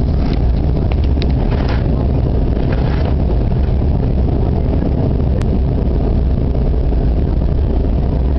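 Steady low cabin roar inside a Canadair CRJ-200 regional jet on descent, from airflow over the fuselage and its rear-mounted turbofan engines. A brief sharp click comes about five seconds in.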